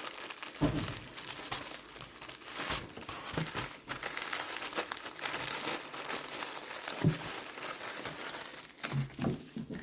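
Packaging crinkling and tearing in irregular bursts as a small package is unwrapped by hand.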